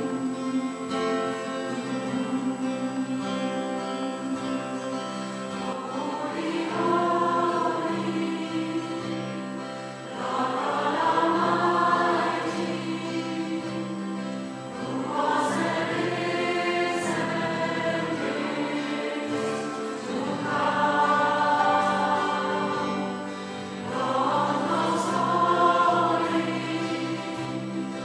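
Background music: a choir singing long held notes in slow phrases that swell and fade every few seconds, over instrumental accompaniment.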